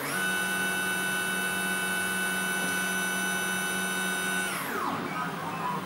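Prusa i3 3D printer's stepper motors whining as the print head and bed travel at the start of a print. The pitch holds steady for about four seconds, then falls as the motors slow down, followed by quieter, uneven motor sounds.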